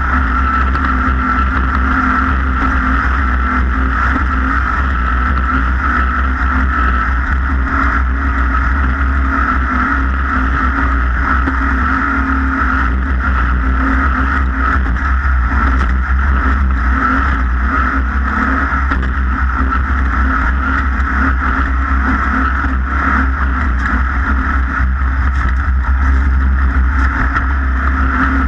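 Off-road race vehicle's engine running hard and steady at speed, with a constant heavy rumble and no clear revving up or down.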